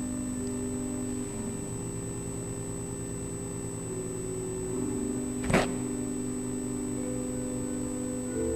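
Church organ playing soft sustained chords that change every couple of seconds. A single sharp knock sounds about five and a half seconds in.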